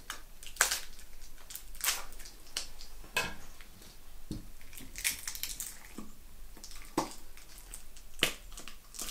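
Scissors cutting through the tape sealing a small glass jar's lid, and the taped lid being worked open by hand. The sound is a run of irregular sharp snips, clicks and crinkles.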